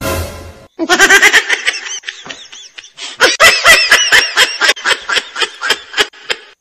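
A woman laughing hard in two long runs of quick, high "ha-ha" bursts, with a short break between them.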